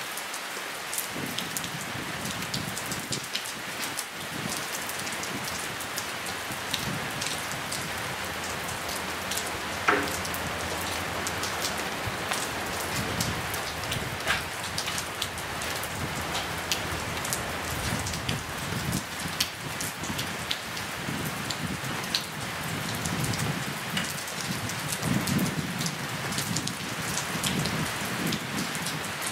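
Steady rain falling, a constant hiss with many close drops ticking and pattering on nearby surfaces, and one sharper tap about ten seconds in.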